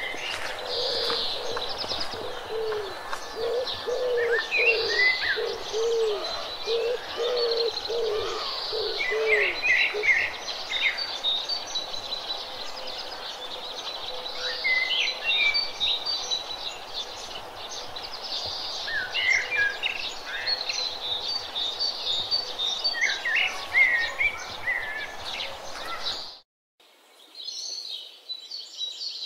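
Birds chirping and singing, with a low call repeated many times during the first ten seconds. The sound cuts off abruptly near the end and then returns.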